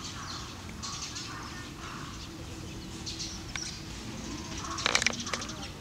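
Outdoor bird ambience: background birds calling in short repeated phrases. About five seconds in comes a brief cluster of sharp clicks and knocks, the loudest sound.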